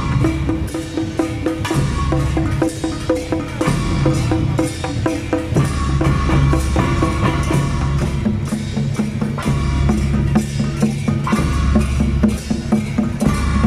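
Taiwanese temple-procession percussion: a large riveted barrel drum beaten with sticks together with handheld gongs and cymbals, struck in a fast, steady rhythm. Pitched ringing tones hold over the beat and shift every second or two.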